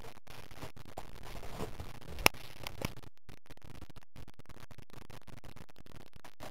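Scratching and rustling on a fabric cushion as a miniature pinscher puppy is handled and scrambles about, with one sharp click a little over two seconds in.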